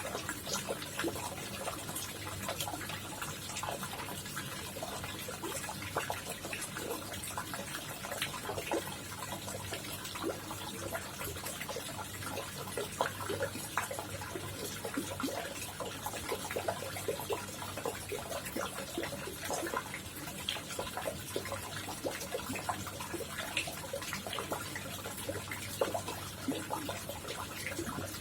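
Koi pond water trickling and splashing steadily, with many small splashes and a low steady hum underneath.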